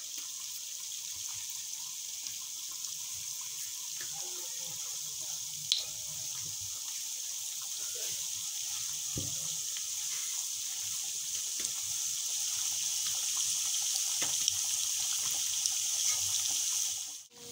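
Khurmi dough discs deep-frying in hot oil: a steady high sizzle with a few scattered crackles and pops. It stops abruptly just before the end.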